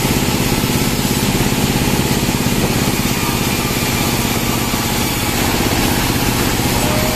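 Band sawmill's engine running steadily with an even rhythm, the saw idling between cuts rather than cutting wood.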